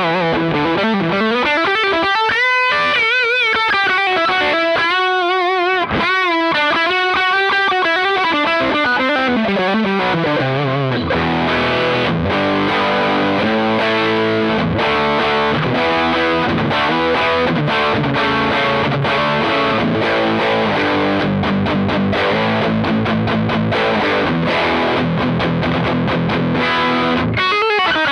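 Electric guitar played through a Fender Hot Rod Deluxe IV 40-watt tube combo amp on its high-gain overdrive setting, heavily distorted. It opens with held notes bent and shaken with vibrato, then moves into fast, dense riffing after about ten seconds.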